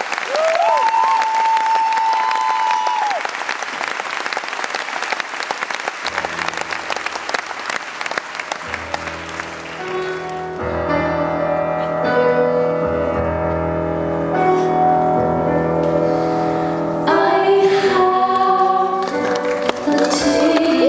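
Audience applauding, with a held whistle in the first few seconds. About six seconds in, sustained keyboard chords with a low bass begin under the applause. The applause dies out by about ten seconds, and near the end a woman's singing voice comes in over the keys.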